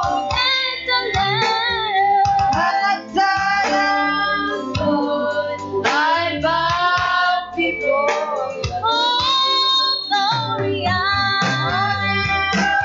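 Worship song: a woman singing a continuous melody over instrumental backing that includes guitar.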